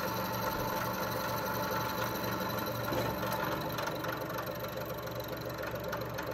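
Bridgeport vertical milling machine running, its end mill cutting a slot in a metal block clamped in the vise: a steady motor and spindle hum with the noise of the cut.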